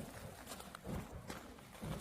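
A can of burning charcoal and wood swung round and round on a wire, whooshing past about once a second, with scattered light crackles and clicks.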